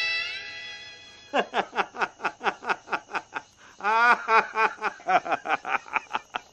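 A man laughing hard in quick short bursts, about five a second, rising into a louder peal about four seconds in. A bowed string note from the background music fades out at the start.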